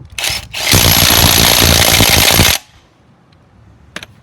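Ryobi three-speed cordless impact wrench hammering on a car wheel's lug nut: a brief burst, then about two seconds of continuous rapid hammering that cuts off suddenly.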